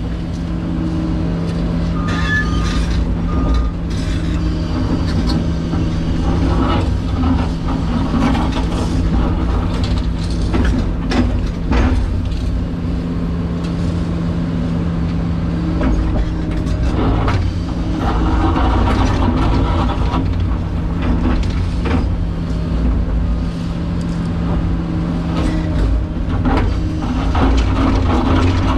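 Excavator diesel engine running steadily under digging load, heard from inside the cab, with a constant low hum. Over it come the hydraulics working the arm and scattered knocks and scrapes as the bucket digs through soil.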